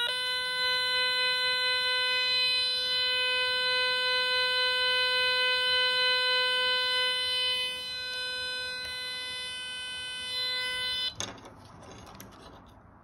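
555-timer electronic piano kit sounding one held note through its small speaker: a steady, buzzy electronic tone with many overtones. The pitch steps up slightly right at the start as the note changes, the tone gets quieter about eight seconds in, and it cuts off abruptly with a click near the end.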